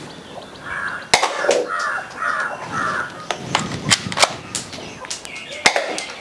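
Toy pistol with a working slide being fired: several sharp snaps, the loudest about a second in and another near the end, with a quick cluster in between. A crow caws about five times in a row during the first half.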